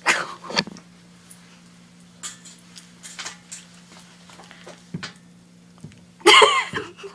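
Stifled giggling from two girls: a breathy laugh at the start, faint snickers, then a short high-pitched burst of laughter about six seconds in, over a steady low hum.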